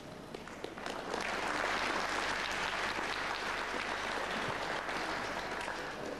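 Audience applauding. The clapping swells about a second in and eases off near the end.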